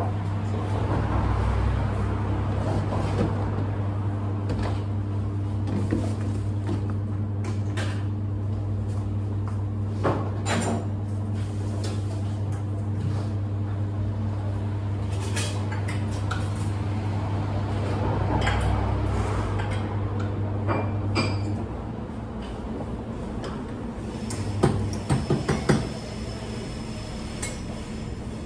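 Clinks and knocks of cups and metal being handled at a café espresso machine, over a steady machine hum that cuts off suddenly about three-quarters of the way through. A quick run of louder knocks comes near the end.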